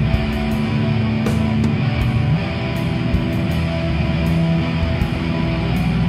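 Background rock music with electric guitar, loud and continuous.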